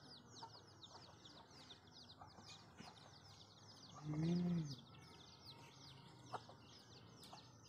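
Steady, rapid high chirping of small birds, with a short hummed "mmm" from someone tasting food about four seconds in, rising then falling in pitch.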